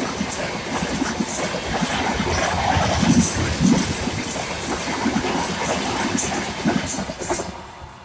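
Express train coaches passing at speed close by, wheels clattering rhythmically over the rail joints with a steady rushing rattle. The sound falls away sharply near the end as the last coach goes by.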